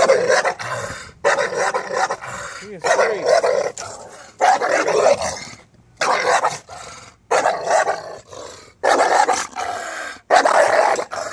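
English bulldog barking repeatedly at the gate, about one loud bark a second, each bark trailing off before the next: a guard dog's warning barks.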